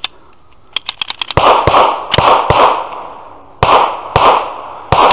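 Infinity competition pistol firing about seven shots in quick strings, each shot echoing, with a longer pause after the first four. A few small sharp clicks come just before the first shot.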